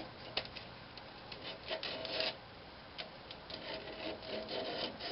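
Coarse, about 80-grit sandpaper scratching against a turned pine cabinet knob in uneven strokes, working out earlier sanding marks. A few light clicks are heard along with it.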